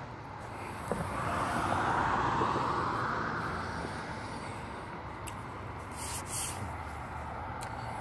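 A road vehicle passing: its tyre and engine noise swells over the first few seconds and then slowly fades away, with a few faint clicks.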